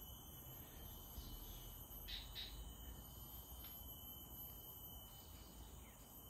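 Faint tropical forest ambience: a steady high insect tone, with a few short bird chirps, two close together about two seconds in.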